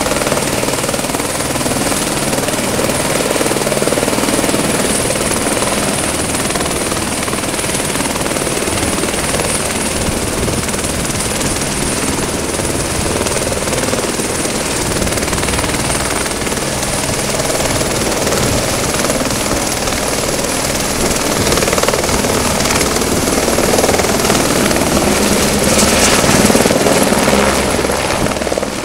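Eurocopter AS350 B3 Écureuil helicopter hovering while it fills its water bucket from a tank, with steady rotor noise under a continuous high turbine whine. It grows slightly louder in the last quarter.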